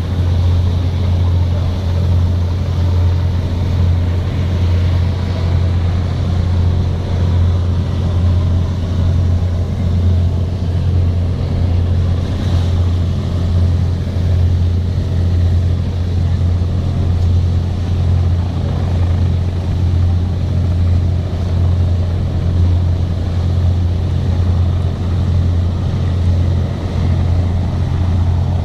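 Boat engine running steadily, a constant low drone with water and wind noise over it.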